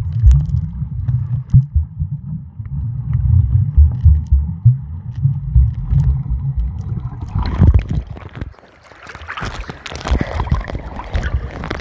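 Muffled low underwater rumble picked up by a phone microphone held under the sea while snorkeling. About seven seconds in, it gives way to louder, rougher sloshing and splashing as the phone breaks the surface.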